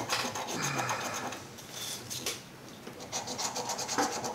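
A coin scraping the coating off a scratch-off lottery ticket in rapid back-and-forth strokes, with a quieter stretch around the middle before the scraping picks up again.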